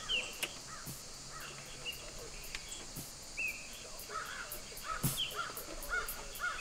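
Birds calling: many short, repeated calls, with a few sharp clicks among them.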